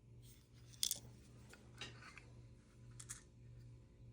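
A few sharp clicks and light rattles from a Zippo Ziplight being handled and opened, with loose parts inside rattling around.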